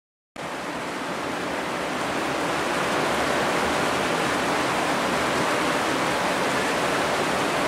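Steady, even rushing noise with no pitch or rhythm, starting a moment in after a brief silence.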